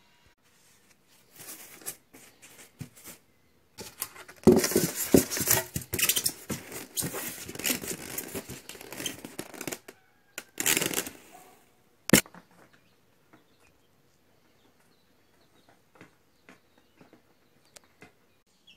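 Packing noises: foam wrap and a styrofoam box rubbing, squeaking and crinkling in irregular bursts, loudest from about four to ten seconds in, with one sharp snap about twelve seconds in.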